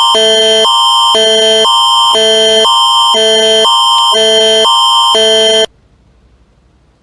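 Canadian Alert Ready attention signal: two chords alternate about every half second over a constant high tone, loud throughout. It cuts off suddenly about five and a half seconds in, leaving faint hiss.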